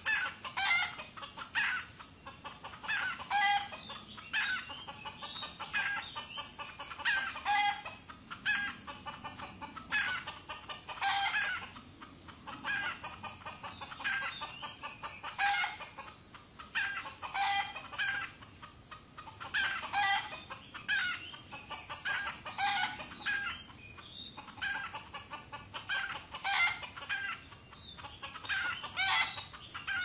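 Red junglefowl calling over and over, short clucks and crows repeated every second or two. A steady high-pitched tone runs underneath.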